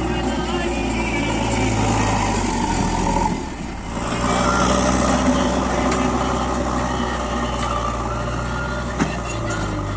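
Heavy diesel machinery engine running under load. Its note drops briefly about three and a half seconds in, then picks up again. There is a single sharp click near the end.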